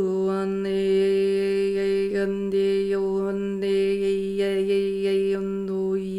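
A woman's voice holding one long sustained sung tone, the vowel shifting over the held pitch with small swoops in pitch: wordless shamanic vocal toning.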